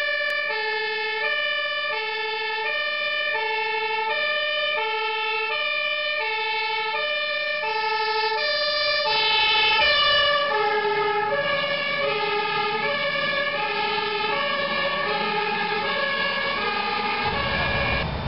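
Dutch fire engine's two-tone siren, alternating high and low notes about once a second as the truck approaches. Its pitch drops as it passes about halfway through, at its loudest there, and it then moves away. A low rumble comes in near the end.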